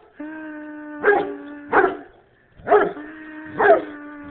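Bernese Mountain Dog barking at a feather it fears: four deep barks, each drawn out into a long, steady howl-like tone.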